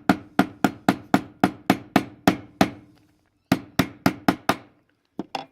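Hammer tapping the end cap onto a clone 2034 padlock body, metal on metal: a steady run of sharp taps at about four a second, each with a short ring, then a brief pause, a second run of five taps and two last taps near the end.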